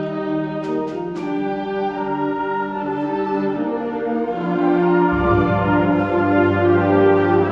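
Middle school concert band playing held wind chords, with three short percussion taps about a second in. Low brass and bass come in about five seconds in and the band grows louder.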